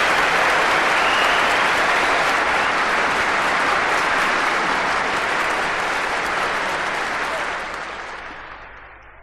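Large crowd applauding: dense, steady clapping that fades out over the last second or two.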